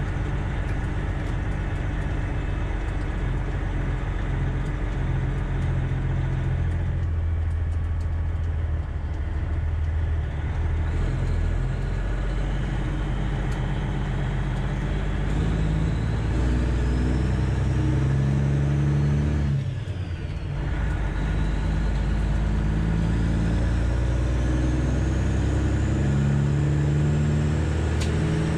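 Freightliner Classic XL's straight-piped diesel engine pulling under load, its note shifting as it runs through the gears. About 20 seconds in the sound briefly drops for a gear change, and a faint high whistle climbs with the revs before and after it.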